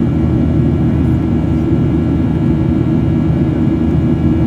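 Steady jet engine drone and rushing airflow heard inside the cabin of a Boeing 737 climbing out after takeoff: a deep, even rumble with several faint steady whining tones above it.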